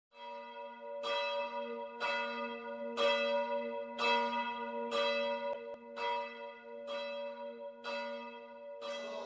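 A church bell tolling, about one strike a second, about ten strikes, each ringing on into the next.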